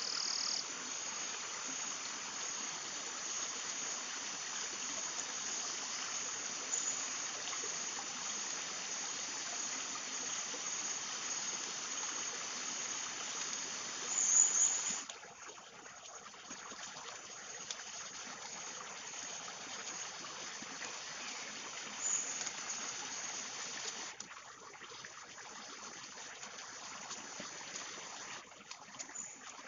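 Steady forest ambience: a continuous high hiss with a faint pulsing trill. The hiss drops away sharply about halfway through and again near the end, with one brief louder high chirp just before the first drop.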